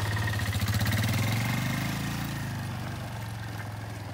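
Sport ATV engine pulling away in first gear under throttle, growing fainter as the quad moves off.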